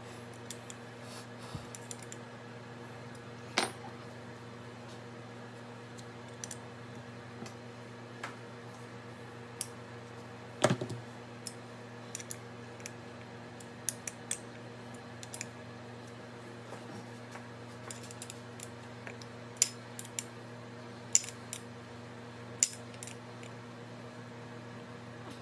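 Scattered light clicks and clinks of small metal parts and tools being handled on a workbench, over a steady low hum. Two louder knocks come about three and a half and ten and a half seconds in.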